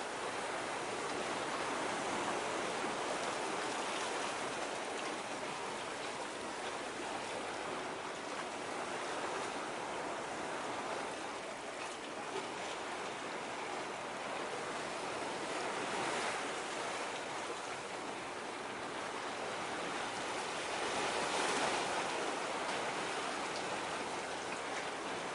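Steady rushing seaside noise of waves washing against a breakwater, mixed with wind, swelling a little twice in the second half. No ship's engine stands out.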